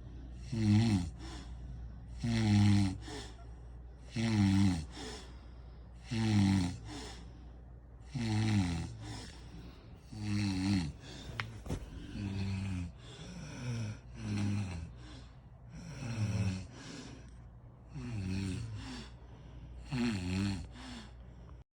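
A sleeping person snoring in a steady rhythm: about eleven snores, roughly one every two seconds, each falling in pitch, over a steady low hum.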